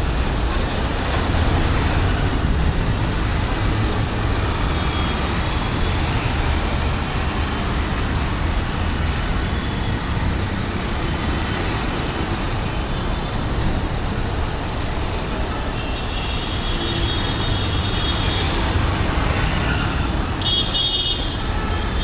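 Cabin sound of a BEST city bus on the move: a steady low engine and road rumble. Vehicle horns toot briefly a couple of times in the second half.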